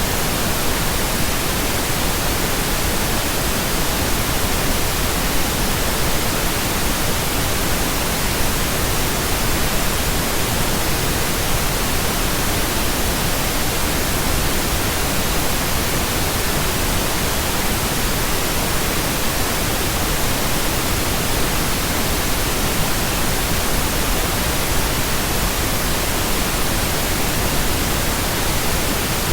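Synthesized pink noise: a steady, even hiss with no change in level or character.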